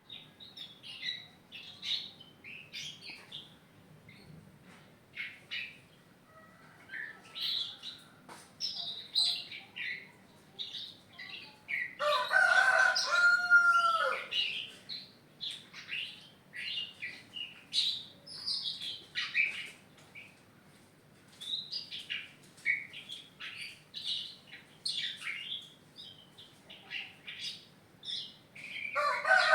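Young caged songbird, not yet moulted, chirping and twittering busily in short bursts. A rooster crows once midway, and another crow begins at the very end.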